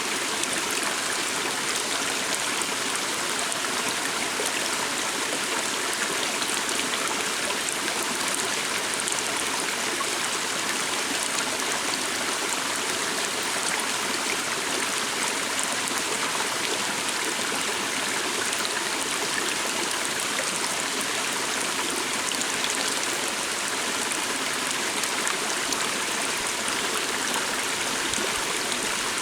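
A calm stream running steadily, a continuous wash of flowing water with fine splashing and trickling.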